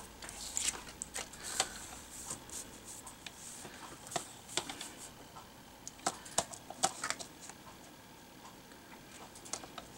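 Light, scattered taps and clicks of patterned cardstock being shifted and squared on a plastic Fiskars paper trimmer, with faint sliding of paper over the trimmer bed.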